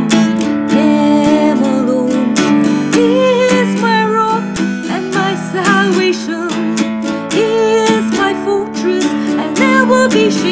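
Worship song: a voice singing a slow melody over strummed acoustic guitar.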